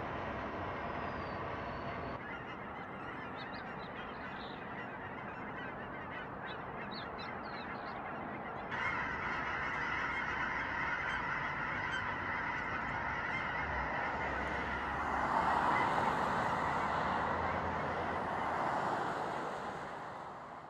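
A large flock of geese honking: a dense, continuous chorus of many overlapping calls. It steps up fuller about nine seconds in, swells around fifteen seconds, then fades out at the end.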